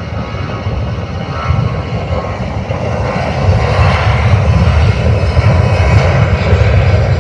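Airbus A321 jet airliner's turbofan engines running at takeoff thrust during the takeoff roll, a continuous rumble and roar that grows louder as the jet accelerates past.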